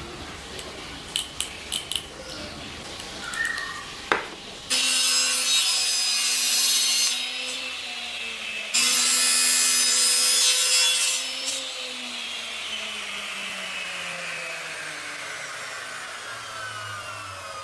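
A small power tool cutting wood in two short passes, its motor running with a steady whine and then slowly spinning down. A few sharp clicks come before it starts.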